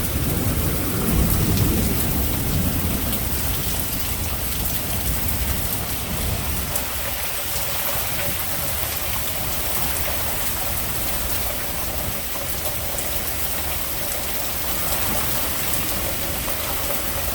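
Storm wind gusting with heavy rain, the wind rumbling on the phone's microphone; the gusts ease after the first few seconds into a steadier rush of rain.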